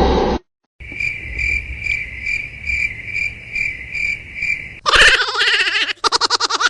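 Cricket-like chirping, a steady high trill pulsing about three times a second for about four seconds. It is cut off near the end by a louder, rapidly pulsing sound.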